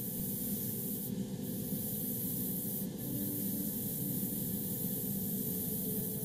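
Airbrush spraying satin varnish in a steady hiss of air, with two brief breaks in the spray about one and three seconds in.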